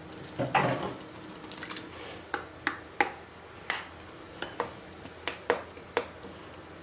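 Chopped green onion drops into egg soup in a stainless steel pot over the soup's faint simmer. A run of sharp, irregular clicks follows, a spoon knocking against the pot as the soup is seasoned and stirred.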